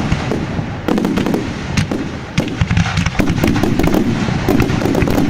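Fireworks going off in quick succession: dense crackling with many sharp bangs, some louder than the rest, over a steady low rumble.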